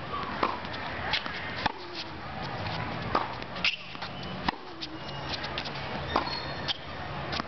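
Tennis rally: a tennis ball hit back and forth with rackets, sharp pops of ball on strings and bounces on the hard court coming irregularly about once a second.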